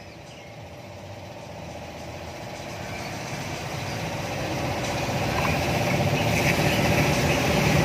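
An engine or motor running steadily with a low hum, growing gradually louder.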